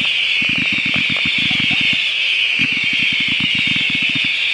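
Fireworks cakes firing in rapid volleys: two runs of quick low thuds, about a dozen shots a second, over a steady high hiss of burning effects.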